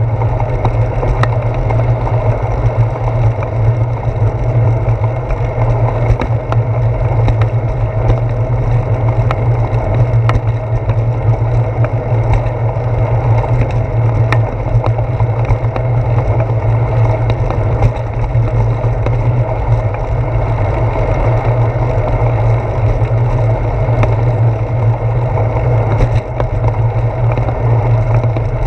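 Steady low rumble of a bicycle rolling on a paved path, picked up through a handlebar-mounted GoPro: tyre and wind noise with scattered small clicks and rattles from bumps in the pavement.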